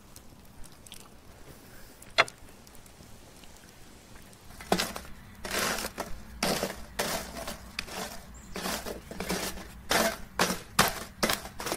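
Glowing charcoal briquettes being stirred, crunching and crackling in irregular bursts from about five seconds in. Before that there is one sharp click about two seconds in.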